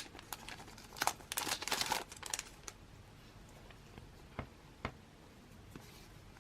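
Packaging crinkling and rustling as it is handled and opened for about two seconds, then quieter, with a couple of light taps.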